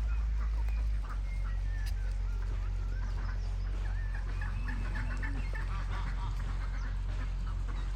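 A flock of domestic turkeys calling in many short, scattered notes and little rising and falling chirps, with a steady low rumble underneath.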